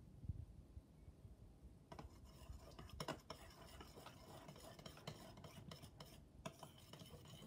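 A metal spoon stirring thick glue slime base in a glass mixing bowl, with irregular scraping and small clinks against the glass, starting about two seconds in.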